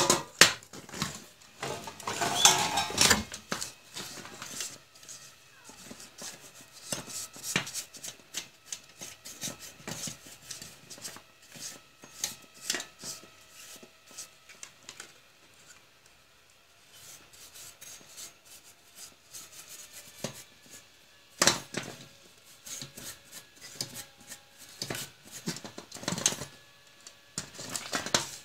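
Irregular metallic clicks, knocks and clatter from a computer power supply being taken apart by hand: the sheet-steel case and circuit board being handled and knocked, and a screwdriver working the screws. The clatter is loudest about two to three seconds in and again about three quarters of the way through.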